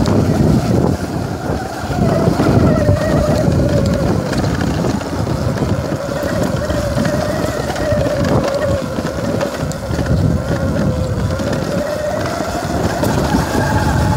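Mountain bike rolling fast down a dirt trail: wind buffeting the microphone and tyre rumble over the ground, with a steady whine underneath that wavers slowly in pitch.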